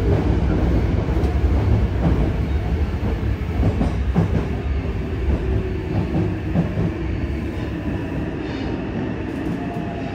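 Yokohama Municipal Subway 3000R train running through a tunnel, heard from inside the car: a heavy rumble of wheels on rail with a few wheel clicks. Its Mitsubishi IGBT-VVVF traction motors give a faint whine that slowly falls in pitch as the train brakes into a station, and the running noise eases off toward the end.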